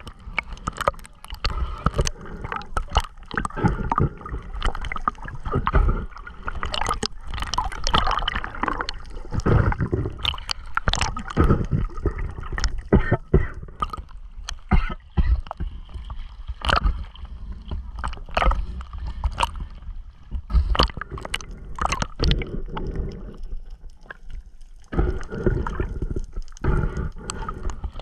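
Seawater sloshing and gurgling around a camera held at the surface as it dips in and out, with many sharp slaps and splashes against it. It goes briefly quieter near the end, then picks up again.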